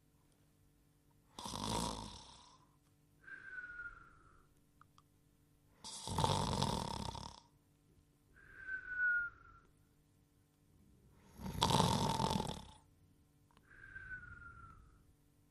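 Cartoon snoring sound effect: three loud snores, each followed by a short, softer whistle that slides slightly down in pitch, in an even snore-then-whistle rhythm of about five seconds a cycle.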